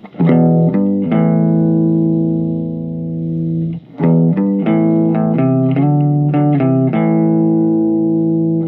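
Electric guitar played on the clean channel of a Marshall MG15MS2 micro stack fitted with a Celestion VT Junior speaker. A chord is struck and left to ring for a few seconds, then comes a run of quicker chord changes.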